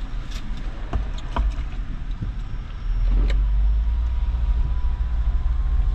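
Honda Pilot's V6 engine and tyres heard from inside the cabin as the car pulls away from a standstill. The low rumble grows louder about three seconds in, and there are a few small clicks and knocks in the first half.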